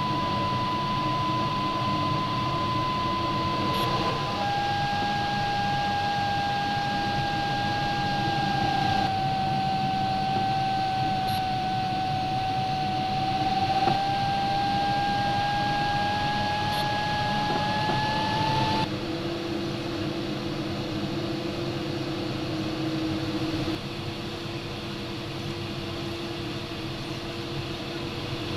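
Steady airflow hiss inside a JS1 sailplane's cockpit, with the glider variometer's audio tone held continuously. The tone drops in pitch after about four seconds, sags slowly and rises again, then gives way to a lower, quieter tone after about nineteen seconds; its pitch follows the climb rate.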